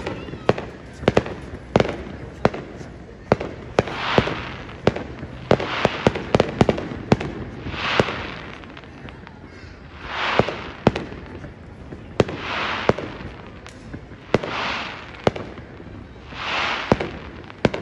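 Aerial firework shells going off: many sharp bangs and pops at an irregular pace, with a swelling hiss that comes back about every two seconds.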